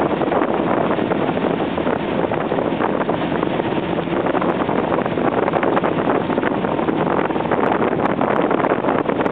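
Tow boat running at speed, its engine and churning wake water mixed with steady wind buffeting on the microphone.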